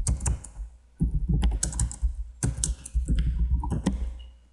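Typing on a computer keyboard: quick runs of keystrokes in three bursts with short pauses between them.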